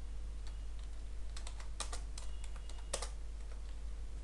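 Typing on a computer keyboard: scattered keystroke clicks, bunched in the middle, with a couple of sharper key strikes.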